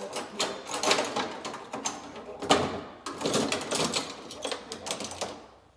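Parts and tools being handled and moved: uneven clattering and rustling with many sharp clicks, loudest about two and a half seconds in.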